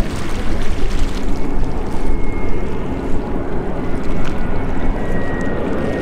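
Airliner jet engines rumbling loudly and steadily, with a faint high whine that slides slightly lower in pitch in the second half.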